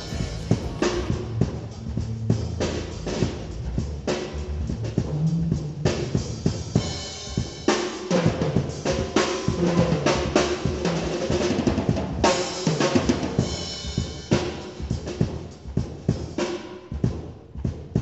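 Drum kit played in a busy groove with fills, kick and snare driving, and electric bass guitar notes underneath. The playing stops just before the end.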